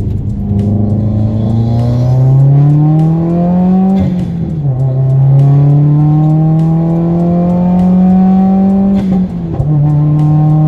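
2018 Subaru WRX turbocharged flat-four with an aftermarket downpipe accelerating hard on a Stage 2 pull, the engine note rising steadily in pitch. It drops sharply for an upshift about four seconds in and again near nine seconds, climbing again between.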